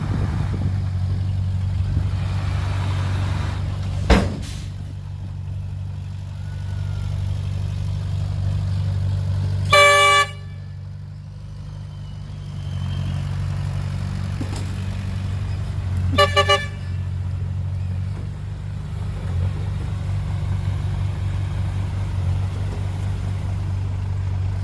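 Heavy earthmoving machinery engine running steadily. A vehicle horn sounds once, about ten seconds in, and again as a short double toot about six seconds later. There is a sharp knock about four seconds in.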